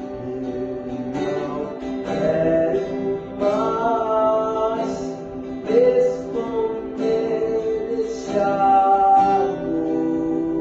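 Acoustic guitar playing the chords of a song's introduction, with a gliding melody line sounding over them several times.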